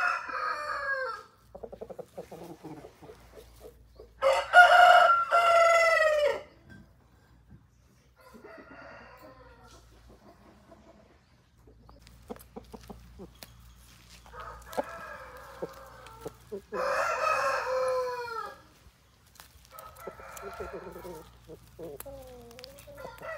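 Aseel roosters crowing: two long crows, the loudest about four seconds in and another about seventeen seconds in, with shorter calls and clucks between them.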